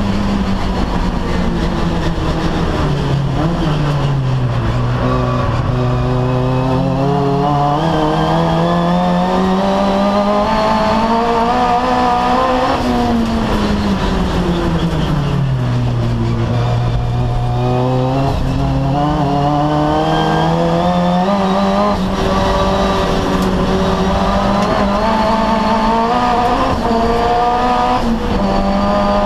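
Turbocharged 4G15 four-cylinder engine of a Mitsubishi Colt Ralliart race car at race pace, heard from inside the cabin. The engine note falls as the car brakes and shifts down, then climbs back under throttle, twice over, and holds steadier near the end.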